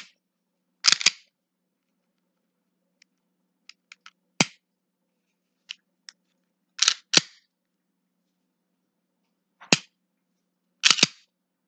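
Taurus G2c pistol with an aftermarket short-stroke trigger being dry-fired. Single sharp metallic snaps from the trigger breaking alternate with quick two-part clacks from the slide being racked to reset it, and faint ticks of trigger take-up come just before one of the snaps.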